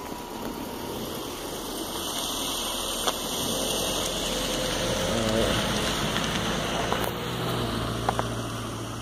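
A car driving past slowly on a snowy, slushy road: tyre and engine noise grows, is loudest about five seconds in, then eases off.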